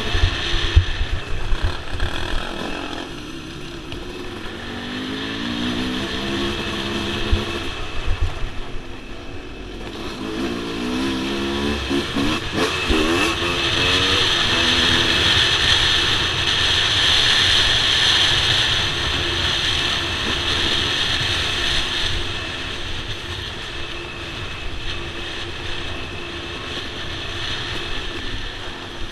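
Yamaha dirt bike engine heard from the rider's helmet, revving up and backing off as it is ridden along a dirt trail, its pitch climbing in runs a few times, with a steady rush of hiss over it.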